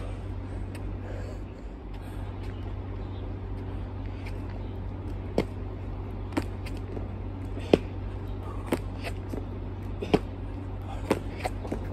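Hands and sneakers striking an asphalt court during burpees: short, sharp slaps and thuds about once a second, starting about five seconds in, over a steady low hum.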